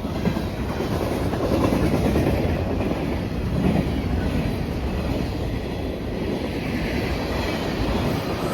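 Manifest freight train passing close by: a steady, loud rumble of wheels and cars running over the rails.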